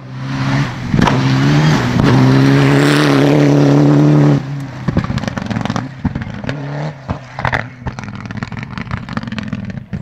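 Mitsubishi Lancer Evolution X rally car's turbocharged four-cylinder engine at full throttle, holding a high steady note for about four seconds, then cutting off suddenly as the driver lifts. It runs on at lower revs through a string of sharp pops and crackles.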